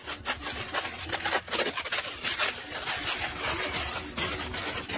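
Plastic wrapping rustling and crinkling as it is pulled and stripped off a cardboard-boxed pack of timber panelling.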